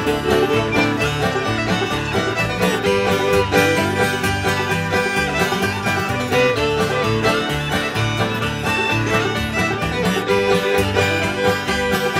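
Live acoustic string band playing an instrumental dance tune: fiddle, banjos, guitar and upright bass together, with a steady beat.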